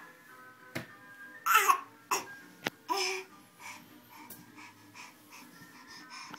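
Baby's excited squeals and babbling, loudest twice early on, then a run of short, quick breathy sounds, with a few sharp slaps of hands on the hardwood floor as he crawls.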